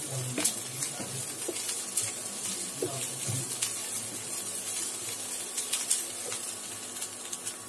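Chopped onions sizzling in oil in a nonstick frying pan while a wooden spatula stirs them, scraping and tapping against the pan many times.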